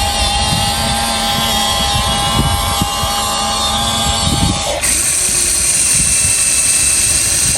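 Radio-controlled construction model's electric motors and hydraulic pump whining steadily with a low rumble. About five seconds in the whine changes abruptly to a higher pitch.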